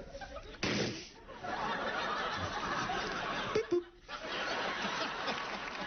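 Studio audience laughing: a short burst of laughter just under a second in, then a longer, sustained wave of laughter from about a second and a half in.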